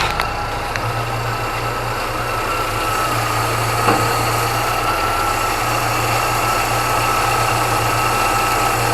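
Chevrolet Niva engine idling steadily with a steady high whine, the steering wheel being turned. About four seconds in comes a single short click: the knock from under the car that is being hunted, which the owners take for a loose bolt on the underbody protection plate.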